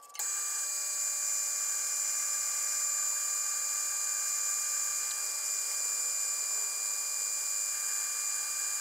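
Grizzly G0602 metal lathe running under a turning cut: a steady, high-pitched whine with several fixed tones, coming in abruptly just after the start.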